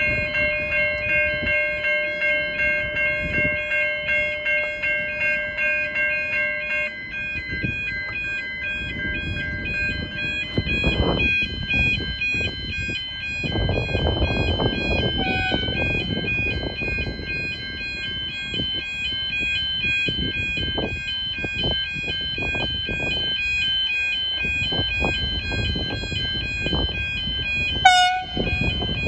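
Level crossing warning bells ringing in a steady repeating pattern, over an irregular low rumble of noise. Near the end, the approaching VLocity diesel railcar gives a short horn blast, with a fainter short blast about halfway through.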